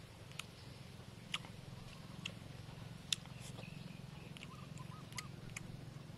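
A metal spoon clinking and scraping against a metal plate as rice and stir-fry are scooped up, a sharp clink about once a second over a low steady hum.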